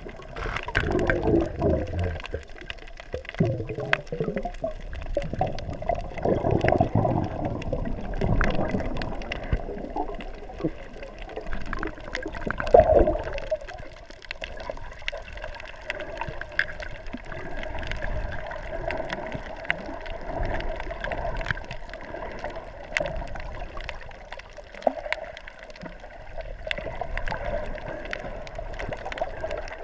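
Muffled underwater water noise through a submerged camera housing: sloshing and gurgling surges, strongest in the first few seconds and again about 13 seconds in, over a steady hum, with scattered sharp clicks.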